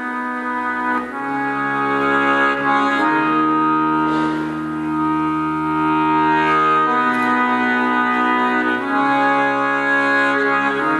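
Live music: slow, held chords on a reed or wind instrument, each chord sustained and changing every one to three seconds, in the instrumental introduction before the singing comes in.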